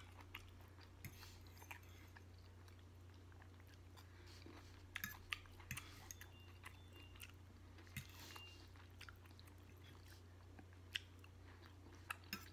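Faint close-miked chewing of steak and vegetables, with scattered soft mouth clicks and a few light taps of a fork on the plate, over a steady low hum.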